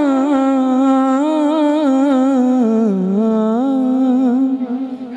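A man singing a naat unaccompanied into a microphone, holding one long wavering note that dips lower about three seconds in and fades away near the end.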